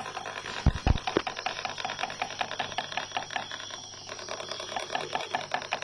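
Fast, even rasping clicks, about ten a second, from a teasing stick twirled against a wooden beetle-fighting log: the sound used to rouse a male rhinoceros beetle to fight. Two or three dull knocks come about a second in.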